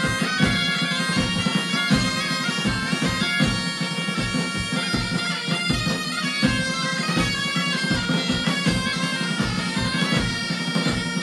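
Gaita de foles bagpipes of a northern Portuguese gaiteiros group playing a tune over a steady drone, with a bass drum (bombo) and a snare drum (caixa) keeping a steady beat.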